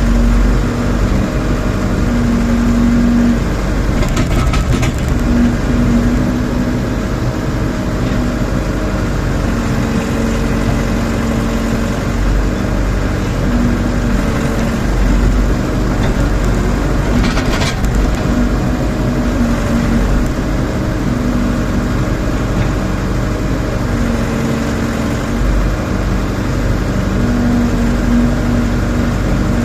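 Rondon backhoe loader's diesel engine running steadily under work, its note swelling and easing as the machine is worked. There are short clatters about four seconds in and again a little past halfway.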